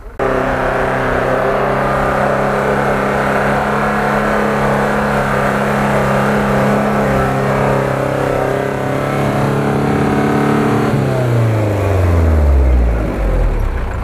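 UAZ-469 engine revving hard and held at high revs as it pushes through deep snow, then the revs fall away about eleven seconds in.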